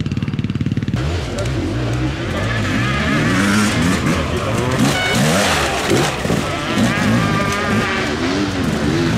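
Several enduro motorcycle engines idling and revving, their pitch rising and falling over one another, with voices mixed in.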